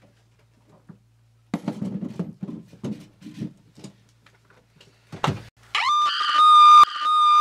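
Knocks and rattles of an old trunk being handled, then a sharp thud about five seconds in. It is followed by a loud, high-pitched scream that swoops up at its start, holds one pitch for about two and a half seconds and cuts off suddenly.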